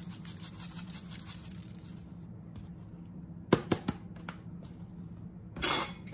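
Black pepper shaker being shaken over raw catfish, a fast rattling of grains for about two seconds. Then a few sharp clicks as spice bottles are handled, with a louder brief rustle near the end as the next bottle is grabbed.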